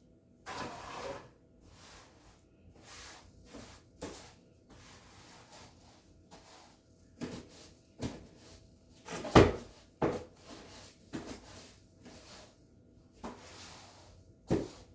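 Irregular knocks, bumps and rubbing of things being handled and moved while cleaning and tidying a room, with one louder knock about nine seconds in.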